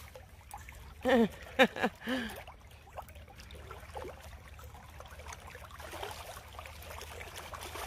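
Shallow creek water running steadily, with a few brief voice sounds with falling pitch about one to two seconds in.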